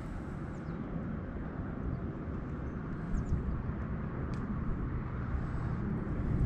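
Steady low outdoor rumble, like wind or distant traffic, with a few faint short high chirps a few seconds in.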